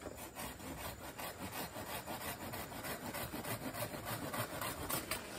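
Hand pruning saw cutting through a cacao branch in quick, even back-and-forth strokes, several a second.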